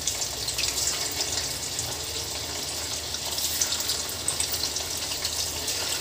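A fresh batch of marinated chicken pieces deep-frying in hot oil in an iron kadai: a steady sizzle with many small crackles.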